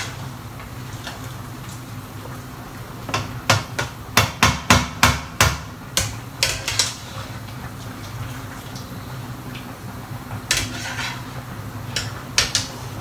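A spatula knocking and scraping against a wok while stir-frying noodles: a quick run of sharp clanks a few seconds in, about two a second, then a few more near the end, over a steady low hum.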